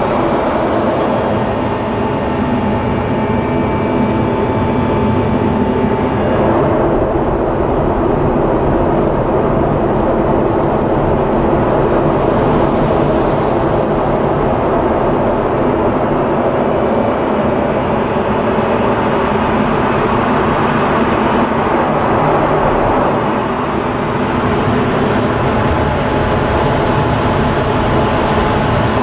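Steady jet engine and airflow noise inside an F-16 fighter's cockpit during display manoeuvres, its tone shifting about a quarter of the way in and again near the end.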